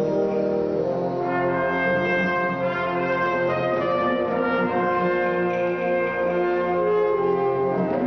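Concert wind band playing live, brass and woodwinds holding full sustained chords, with higher melody notes coming in about a second in.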